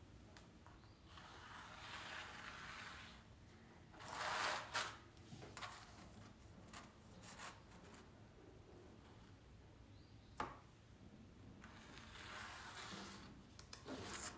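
Chalk rubbing along a stretched canvas beside a ruler, in three faint scraping strokes, the second the loudest, with a few light clicks in between.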